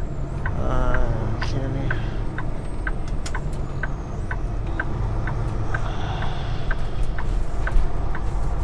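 Semi-truck cab interior: the diesel engine rumbles steadily under a turn-signal flasher ticking evenly, about two and a half clicks a second.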